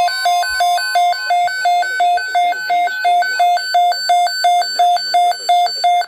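Midland NOAA weather radio sounding its alert alarm for a received weather alert: loud beeps alternating between a low and a high pitch, about three of each a second, cutting off suddenly at the end. A steady single-pitch alert tone runs beneath the beeping for about the first second.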